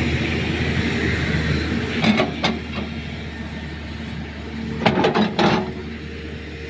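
JCB digger's diesel engine running steadily, with two short bursts of metal clanking, about two seconds in and again about five seconds in.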